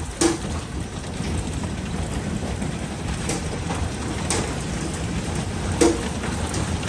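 Hail and heavy rain falling on a steel roof and the steps, a steady dense patter with a few sharper hailstone strikes, the loudest just after the start and near the end.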